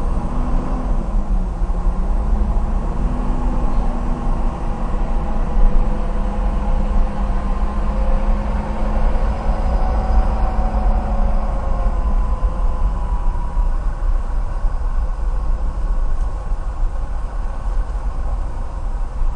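Car engine and road rumble heard from inside the cabin while creeping in slow highway traffic: a steady low rumble with a faint engine hum that wavers up and down in pitch through the first half, then fades.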